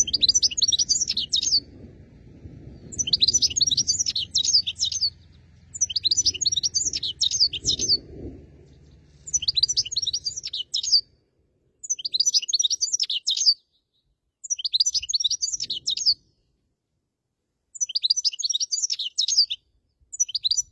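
European goldfinch (black-headed form) singing: phrases of rapid, high twittering notes, each about a second and a half long, repeated seven times with short pauses, and an eighth phrase starting at the end.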